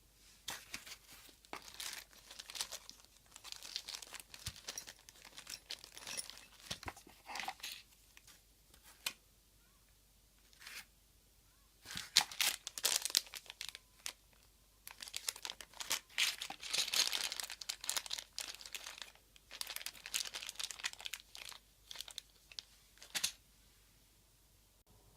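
Packaging being crinkled and torn in irregular bursts, with short pauses between handlings.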